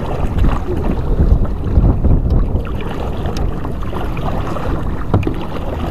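Strong wind rumbling on the microphone over paddle splashes and water lapping as a canoe is paddled through choppy water.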